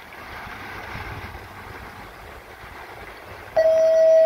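Steady wind and water noise, then about three and a half seconds in a loud, steady, single-pitched tone starts suddenly and holds.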